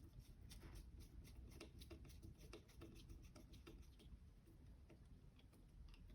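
Faint, irregular light clicks and taps of small parts being handled.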